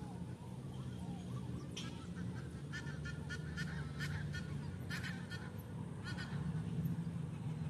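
Geese honking: a run of short, repeated calls starting about two seconds in and stopping shortly before the end, over a steady low rumble.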